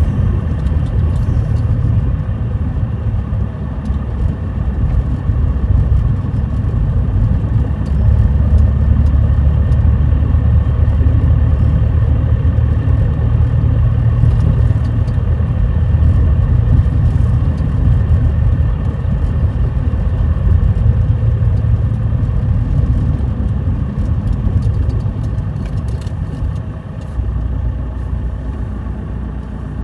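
Car's engine and tyres heard from inside the cabin while driving: a steady low rumble that eases slightly near the end.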